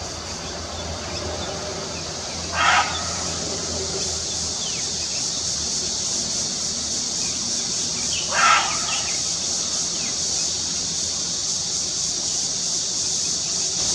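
Birds calling outdoors: two short, loud calls about six seconds apart and a few faint, high, falling chirps, over a steady high-pitched background drone.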